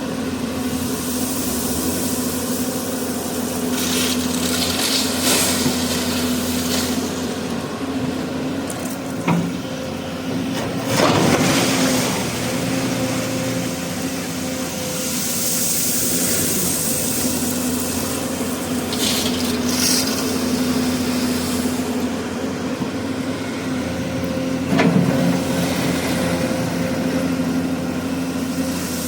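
Hyundai 215 excavator's diesel engine running steadily under work, with several passing rushes of hiss and a few sharp knocks, the loudest about a second in and near the end.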